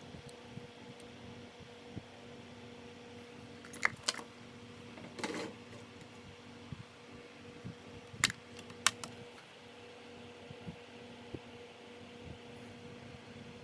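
Small tools and parts being handled on a workbench during soldering: a few sharp clicks and taps about four seconds in and twice more between eight and nine seconds, with a brief rustle in between, over a steady low hum.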